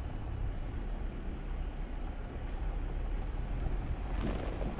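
Jeep Gladiator pickup driving, a steady low rumble of engine and tyres, with a brief louder rush of noise near the end.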